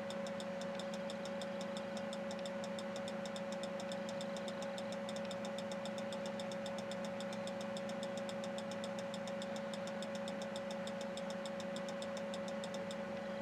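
A steady electrical or mechanical hum with a fast, even ticking over it.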